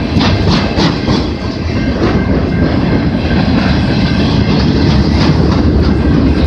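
Freight train cars rolling past at close range: a steady heavy rumble with wheels clicking over rail joints, the clicks most distinct in the first couple of seconds.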